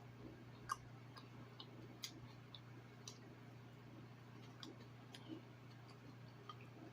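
Near silence: a steady low hum with a handful of faint, irregular small clicks.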